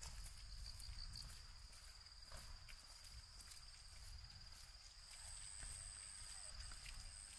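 Faint, steady high-pitched insect song, with a second, higher continuous note joining about five seconds in, over a low rumble and a few light clicks.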